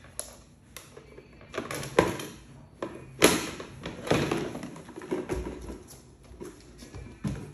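Plastic clicks and knocks from a toy doctor's kit case and its plastic tools being handled and rummaged through, with two sharper knocks about two and three seconds in.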